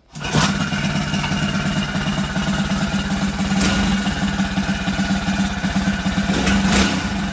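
A 49cc motorized-bicycle engine catches right away and runs at a steady idle, with a few brief sharp clicks along the way, two of them close together near the end.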